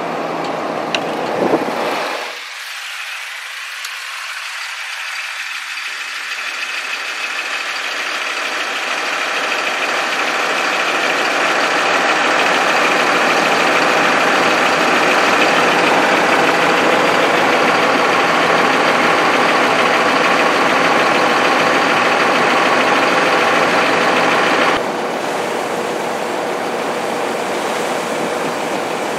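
Tractor engine running while a hydraulic dump wagon tips chopped corn silage into a semi trailer. The sound builds gradually over several seconds and drops suddenly near the end.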